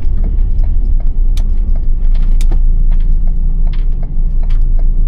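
Camper van driving, heard from inside the cab: a loud low road and engine rumble with irregular clicks and rattles from loose things in the van.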